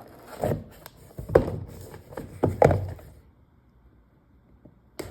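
Buck Slim Ranger pocketknife cutting the packing tape on a cardboard shipping box: about half a dozen sharp slicing and knocking strokes over the first three seconds.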